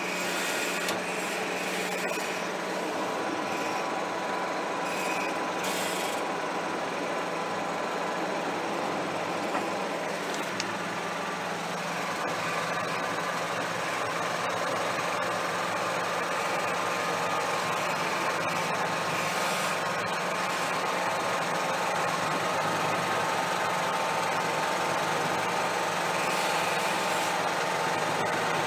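John Deere 6155R tractor's six-cylinder diesel engine running steadily, heard from inside the cab while it tows two loaded grain trailers. The engine note climbs slightly and gets a little louder about halfway through.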